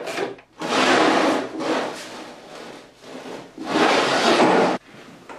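Two bursts of rubbing and scraping, about a second each, with lower clatter between, from hands working on a motorcycle's front fork and wheel.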